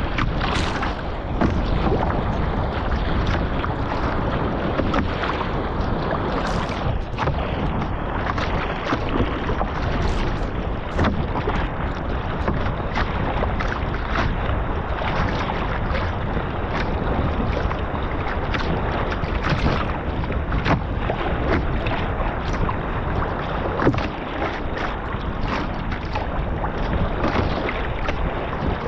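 Wind buffeting the microphone over the steady wash of choppy sea around a Stellar S18 G2 sea kayak being paddled, with short splashes every second or so.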